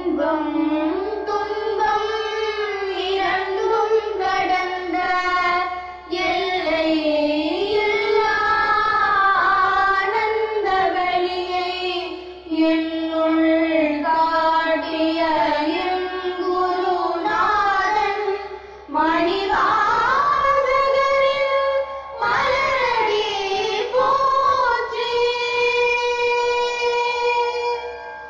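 A single voice singing a verse of a Tamil devotional hymn, line by line, with a short break between phrases every few seconds.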